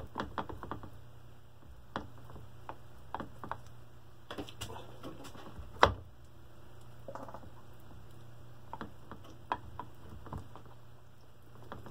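Scattered small metal clicks and clinks as the roller chain and gear sets of a Tecumseh Peerless 700-series transmission are worked loose by hand inside the open case, with one louder knock about six seconds in. Under it runs a steady low hum.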